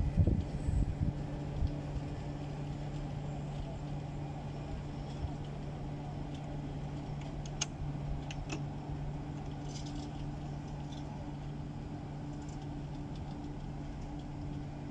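Russian Railways passenger coaches rolling slowly along the track, with a steady low hum over a low rumble. Heavy wheel thumps right at the start, and a couple of short sharp clicks or squeaks about halfway through.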